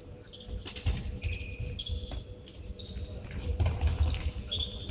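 Indoor futsal play echoing in a sports hall: players' shoes squeaking in short high chirps on the court floor, with scattered sharp knocks of the ball being kicked.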